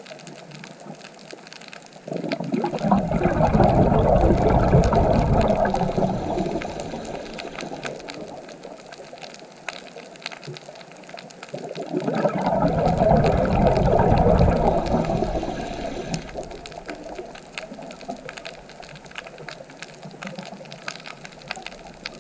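Sea waves breaking and washing up the shore: two surges of rushing water about ten seconds apart, each swelling quickly and then slowly fading.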